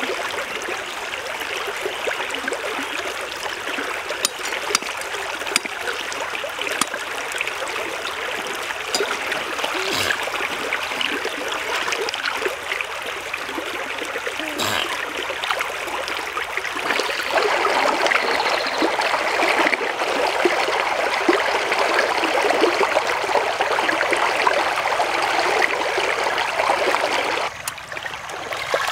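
Shallow stream running and trickling over rocks, steady throughout. It gets louder a little past the middle and drops back just before the end, with a couple of light knocks along the way.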